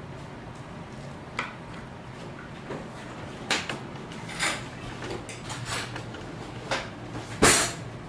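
Cutlery clattering as it is picked out of a wooden drawer organiser. There are about six separate knocks and rattles, and the loudest, longest one comes near the end.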